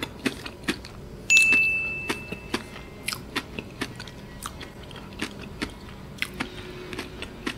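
Close-up crunchy chewing of a strawberry chocolate bar with crisped rice inside, a steady run of small crunches. A louder bite comes about a second in.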